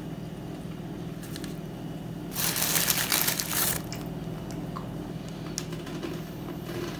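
Plastic carry bag crinkling and rustling for about a second and a half, starting about two and a half seconds in, over a steady low hum.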